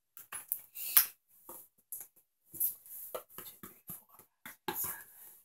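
Items being shifted around inside a cardboard box by hand: irregular short rustles, clicks and knocks.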